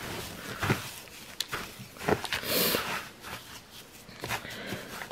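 A hand stirring and spreading wood-shaving bedding in a plastic cage tray: dry rustling with irregular scratches and light taps, and a louder rustle about two and a half seconds in.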